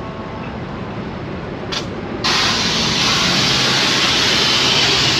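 A short hiss, then a loud, steady hiss of released pressurised air that starts abruptly about two seconds in. A low engine hum runs underneath.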